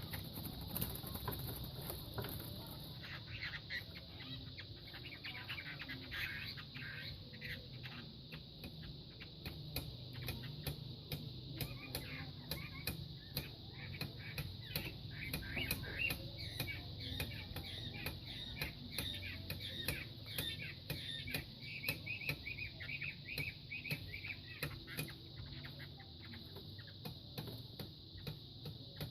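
Two fighting cocks sparring: a steady run of wing flaps and sharp knocking strikes, with bird chirps over them.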